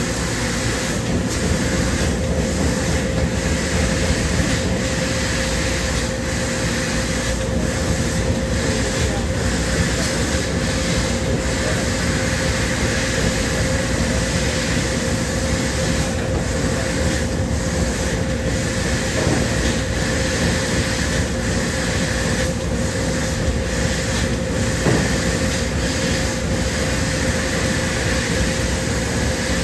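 Bystronic CNC sheet laser cutting system running: a loud, steady rushing noise with a constant hum, the hiss dipping briefly every second or so.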